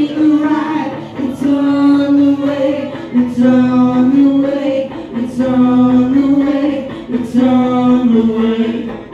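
Live rock vocalist singing through the PA in about five long held phrases of roughly two seconds each, with no drums underneath.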